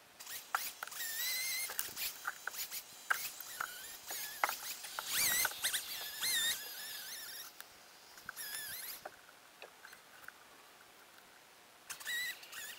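Fast-forwarded chainsaw sound, sped up into a high-pitched squeal that wavers up and down in short bursts, mixed with quick clicks and knocks. There are quieter gaps between the bursts.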